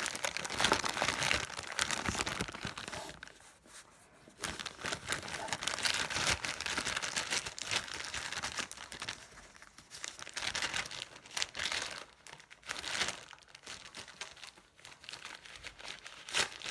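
Crinkling and rustling of packaging being handled, in irregular bursts with short quieter gaps.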